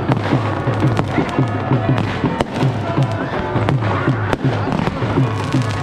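New Year fireworks and firecrackers going off in rapid, irregular succession: many sharp bangs and cracks. Music with a steady, even-paced beat plays underneath, along with voices.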